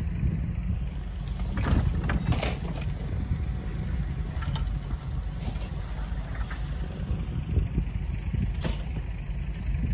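Heavy machine's engine running steadily with a low rumble, with scattered short rattles and clicks over it.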